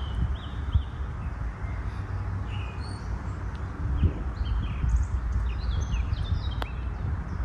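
Wind buffeting the microphone with a steady low rumble, while birds chirp in many short high notes. A single sharp click sounds near the end.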